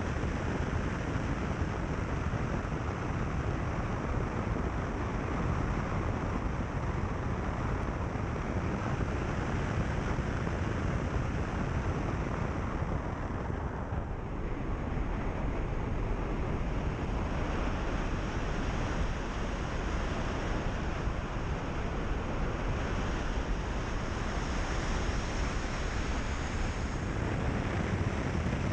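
Steady rush of wind buffeting a microphone mounted on the bonnet of a car driving along a gravel road, mixed with tyre noise on the gravel. It eases briefly about halfway through, through a bend.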